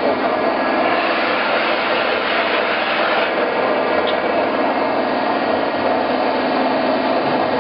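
DiAcro hydra-mechanical press brake running, its 3 horsepower motor giving a steady, even machine noise with a faint hum.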